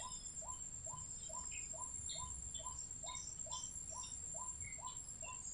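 Faint night chorus from the field: a steady high insect drone, with a soft short call repeated evenly about three times a second and scattered faint chirps.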